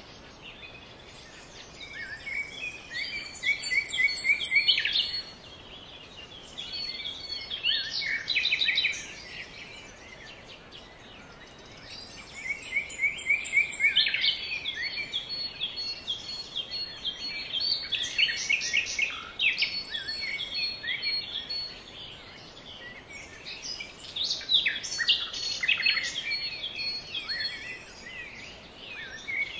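Songbirds singing in phrases of quick repeated high notes, each lasting a few seconds with short pauses between, over a faint steady hiss.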